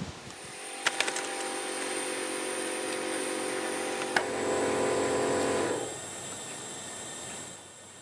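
A small motor hums steadily, with two sharp clicks, one about a second in and one about four seconds in; the hum stops near six seconds.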